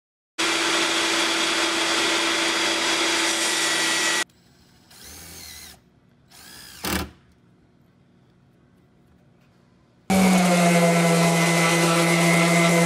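An electric power tool runs steadily for about four seconds and cuts off, then a quiet stretch with faint handling sounds and one short knock. About ten seconds in, an electric random orbital sander starts and runs steadily with a constant motor hum, sanding a particleboard panel.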